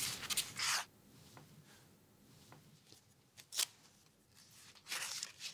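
Pages of a hardcover picture book being handled and turned: paper rustling at the start, a single short tap about three and a half seconds in, and more rustling near the end.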